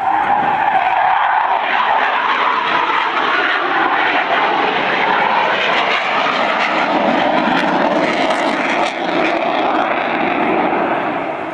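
Jet noise from the twin Rolls-Royce Avon turbojets of a de Havilland Sea Vixen FAW.2 flying a display pass. It swells loud just as it begins and stays loud and steady, easing slightly near the end.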